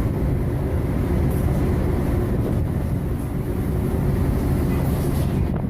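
Loud, steady low rumble of a boat labouring in rough seas, with wind buffeting the microphone.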